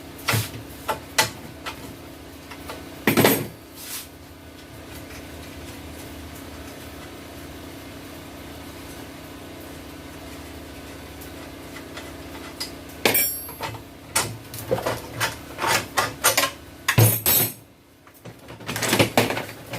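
Metal tools and parts of a mini bike clinking and knocking as its wheels are taken off: scattered sharp clicks, a louder knock about three seconds in, a quieter stretch, then a run of quick clanks near the end.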